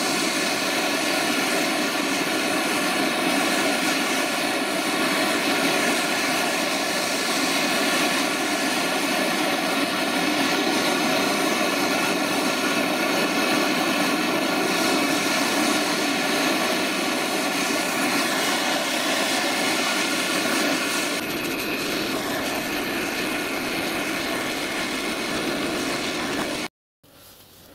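Gas blowtorch flame burning with a steady, loud rushing noise as it heats an aluminium joint for Lumiweld brazing. The sound shifts slightly about three-quarters of the way through and cuts off suddenly near the end.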